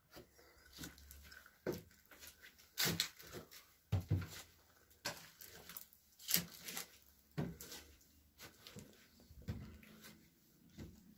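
Footsteps on a staircase strewn with dry leaves and rubble: irregular crunches and scuffs, about one or two a second.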